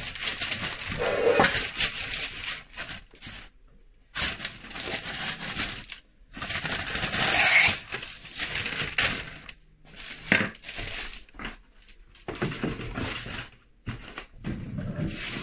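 Sheet of baking paper rustling and crinkling as it is handled and cut with a kitchen knife. It comes in several bursts with short pauses between.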